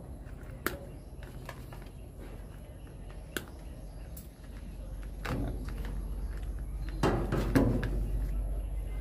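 Hand tool and electrical wires being worked at a junction box: scattered sharp clicks, with longer clattering handling noises about five and seven seconds in.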